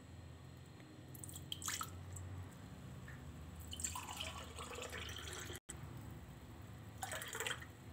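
Bael fruit sharbat poured from a bowl into drinking glasses, the thick juice splashing into each glass in three separate pours.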